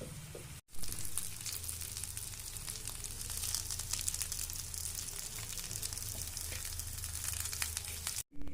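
Food frying in hot oil: a steady sizzle with many small crackles and pops. It breaks off briefly about half a second in and again just before the end.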